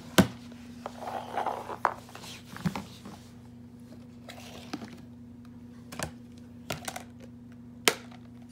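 Scattered sharp knocks and clicks of slime-making supplies (glue bottle, shaving foam can, containers) being set down on a hard surface, about six in all, the loudest near the start, with some rustling in the first two seconds. A steady low hum runs underneath.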